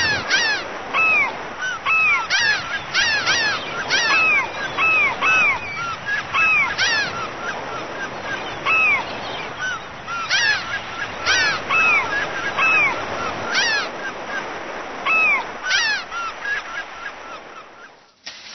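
A flock of gulls calling: many loud, arched cries overlapping one after another, which break off shortly before the end.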